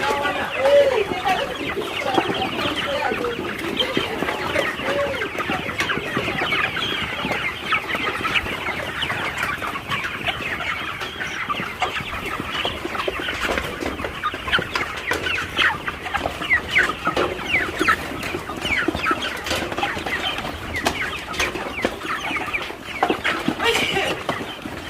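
A poultry-house flock of chickens calling and clucking without pause, many short calls overlapping into a continuous chatter.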